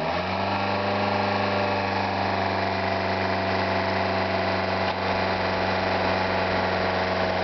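Electric starter motor cranking an old car engine: a steady whine that spins up in the first moment and then holds, with the engine not catching.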